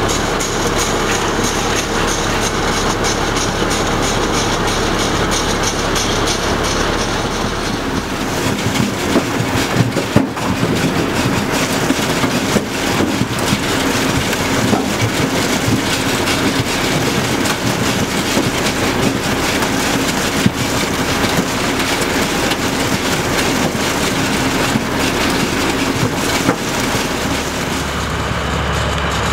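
Tractor engine running while it pulls a sugar beet harvester. About eight seconds in, the sound turns to a dense metallic rattle of beets tumbling over the harvester's cleaning rolls and chains, with occasional sharp knocks.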